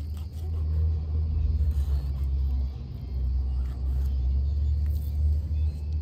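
Wind buffeting the microphone: a low, uneven rumble that rises and falls. Under it runs a faint steady insect trill, with a few light clicks from knife work on the fish.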